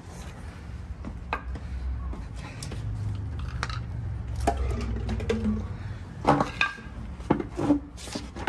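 Hands working among metal parts and tools on a motorcycle frame: scattered clinks and knocks with rubbing over a low rumble, the sharpest clinks bunched near the end.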